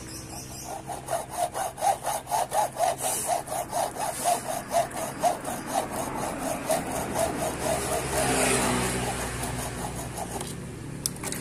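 Hand hacksaw cutting across the freshly recast lead terminal post of a truck battery in quick back-and-forth strokes, about four a second. The strokes blur into a steadier rasp near the end, then stop.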